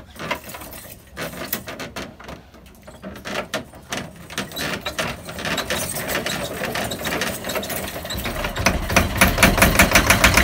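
Small two-cylinder inboard boat engine being hand-cranked, with clattering mechanical clicks, then catching about two-thirds of the way through and running with a fast, even beat that grows louder.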